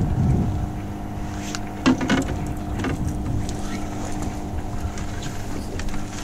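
Small boat's outboard motor running steadily at trolling speed, a low even hum with wind and water rumble over it. A couple of short knocks about two and three seconds in.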